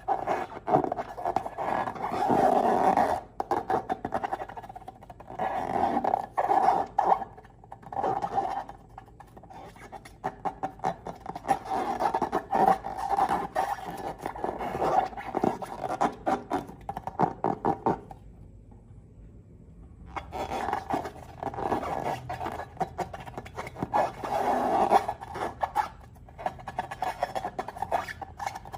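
Slime-filled rubber balloons being squeezed and handled: irregular rubbery squeaks and crackles in runs, with a short pause about two-thirds of the way through.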